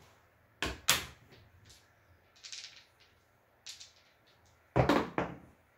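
Dice and casino chips clicking as they are handled, then, near the end, a pair of dice thrown down a felt craps table, tumbling and knocking against the back wall in a quick clatter.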